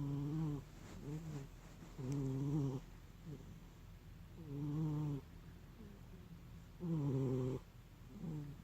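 Domestic cat snoring in its sleep. Four low, pitched snores come about every two and a half seconds, each with a fainter breath sound between them.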